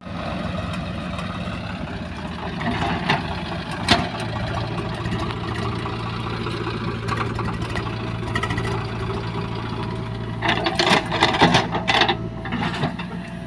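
Diesel engine of a JCB 3DX backhoe loader running steadily as it digs, with a few sharp knocks about four seconds in. A burst of clattering comes near the end as the bucket dumps earth and stones into a tractor trailer.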